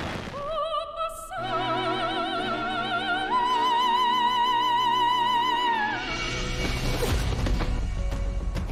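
Operatic singing as trailer music: a high voice with wide vibrato holds a note, steps up to a higher held note about three seconds in, then slides down and stops near six seconds in. A noisier swell of music follows.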